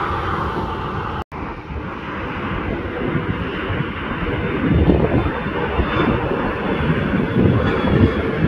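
Jet engine rumble from a Bombardier CRJ regional jet's twin rear-mounted turbofans as it climbs out after takeoff, growing somewhat louder about halfway through. The sound cuts out for an instant about a second in.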